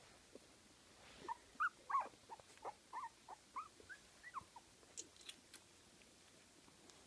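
Fifteen-day-old Kooikerhondje puppies squeaking and whimpering: a run of about a dozen short, high squeaks from about a second in until a little after four seconds.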